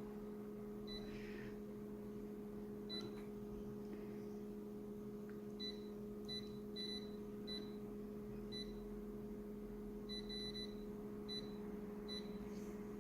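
A dozen or so short, high electronic beeps at irregular intervals, over a steady low electrical hum.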